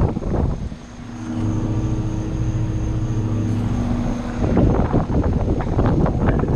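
2011 Goodman 2.5-ton package heat pump running: a steady low hum from its compressor and fan. Wind noise on the microphone covers it in the first second and again from about four and a half seconds in.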